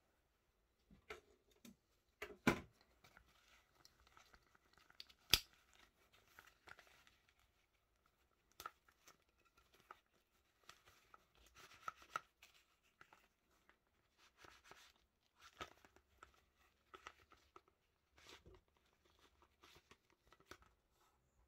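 Nylon knife sheath being handled: faint rustling and scraping of the fabric and straps, with two sharp, louder clicks or snaps about two and a half and five seconds in.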